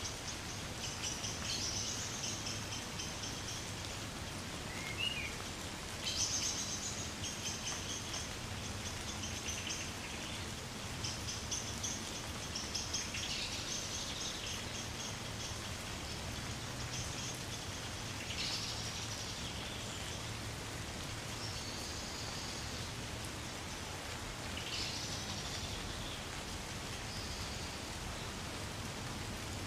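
Light, gentle rain pattering steadily on woodland trees. Small birds chirp and give short high trills on and off over it, several times.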